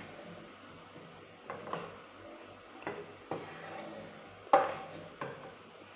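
Kitchenware knocking and clinking: about six separate sharp knocks, the loudest about four and a half seconds in, as cooked sausages are moved from the pan into a bowl.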